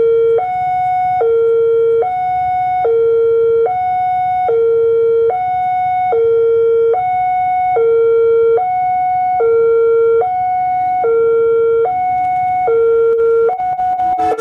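Railway level-crossing warning alarm sounding two alternating electronic tones, a low one and a higher one, switching about every 0.8 seconds. It signals that a train is approaching the crossing.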